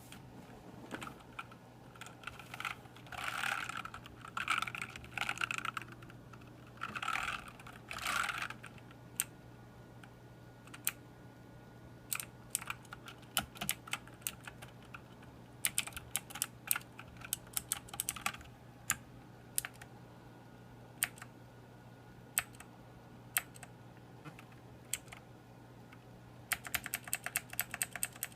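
Keys of a Motospeed CK104 mechanical keyboard clicking, mostly pressed one at a time. A few seconds in come several short flurries of clatter, and near the end a fast run of typing at about eight keystrokes a second.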